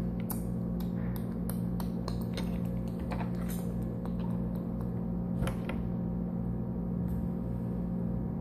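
Small plastic Lego pieces clicking and clattering as they are handled and sorted by hand, busiest in the first two-thirds and sparser near the end, over a steady low hum.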